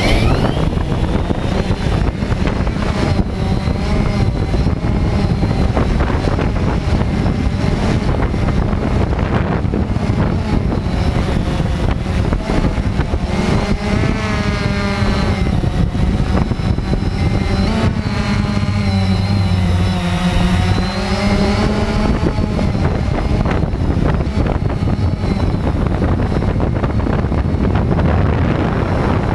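Cheerson CX-20 quadcopter's motors and propellers buzzing steadily, with the motor pitch wavering up and down through the middle of the stretch as the motor speeds change.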